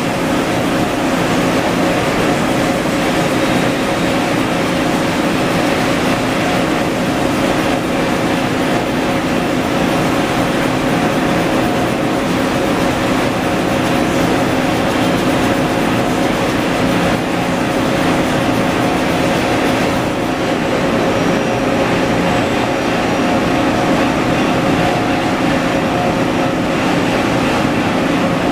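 Steady drone of industrial machinery: a constant hum with a few held tones over an even rush of noise, with no strikes or changes in rhythm.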